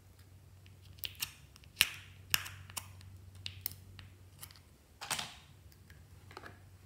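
Metal pick tool clicking and scraping against a small plastic pot as it digs out lumps of slime: a scatter of sharp ticks, with the loudest about two seconds in and a short scrape about five seconds in.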